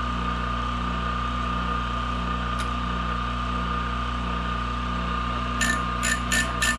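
Electric piston ring filer's motor running steadily with a steady whine while its grinding wheel takes material off the end of a stainless steel piston ring to open the ring gap. A few sharp clicks come near the end.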